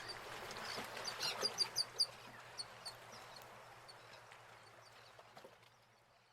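Birds chirping: a quick run of short, high chirps about a second in, thinning out as the whole sound fades away near the end.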